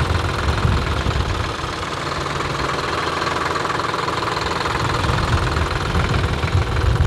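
Diesel engine of a 24-horsepower Solis mini-tractor running steadily with the bonnet open, its pulsing heard directly from the engine bay.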